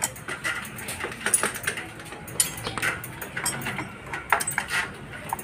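Irregular metallic clicks and clinks of hand-fitted parts and tools on a scooter's CVT drive pulley, as the drive face and its nut are seated and threaded on by hand.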